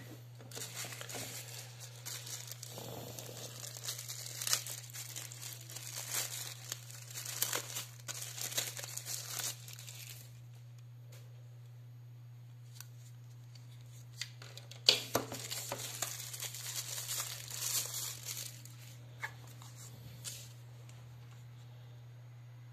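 Thin plastic bags crinkling as they are handled and pulled open by hand, in two bouts with a quiet pause of a few seconds between them. A steady low hum runs underneath.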